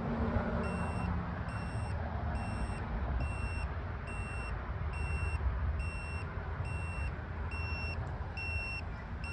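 Handheld carbon monoxide meter's alarm beeping: short high electronic beeps repeating a little faster than once a second, starting under a second in, triggered by carbon monoxide in fireplace smoke. Wind rumbles steadily on the microphone underneath.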